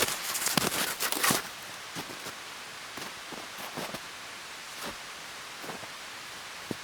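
Wood fire crackling: a dense run of pops and crackles in the first second and a half, then scattered single pops over a faint steady hiss.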